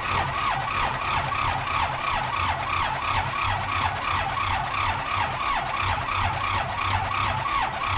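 Starter cranking the Ford 555 backhoe's diesel engine without it catching, with a whine that rises and falls about three times a second over a low rumble, as each cylinder comes up on compression. The battery is weak.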